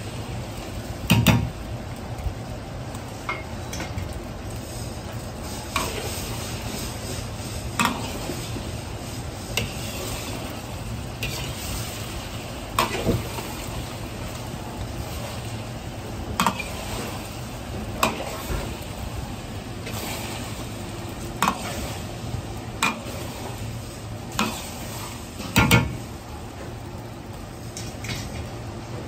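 Egg mixture sizzling in oil in a wok, with a metal ladle scraping and knocking against the wok every second or two, over the steady low rumble of a gas burner. The loudest knocks come about a second in and near the end.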